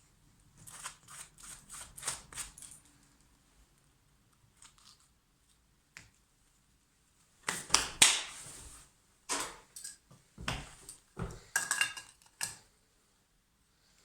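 Work on fitting a back box into a brick wall: a quick run of light clicks in the first few seconds, then several sharp knocks with a short ring over the second half.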